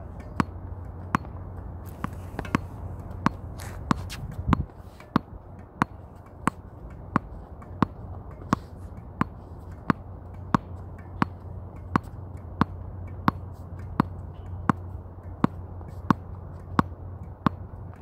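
Tennis ball bounced over and over on a hard court in an even rhythm, about three bounces every two seconds, over a steady low hum.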